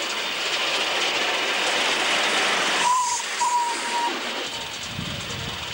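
Live steam miniature locomotive running past with riders aboard, its steam hissing loudly. A short high whistle sounds twice about three seconds in, the hiss then drops away, and a low rumble follows near the end.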